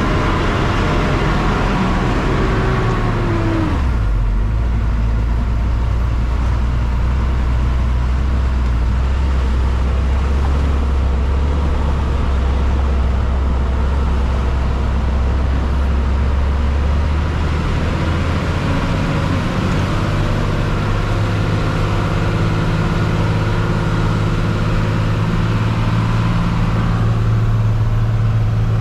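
Diesel engine of a BharatBenz truck running on the road. The engine note drops about four seconds in, runs steady and low, then climbs in pitch from just past the middle and holds there as the truck pulls.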